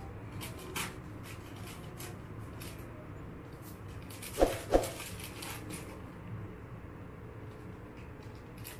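Thin plastic bag crinkling now and then as a kitten moves about inside it and a cat noses at it, with two sharp knocks close together about halfway through.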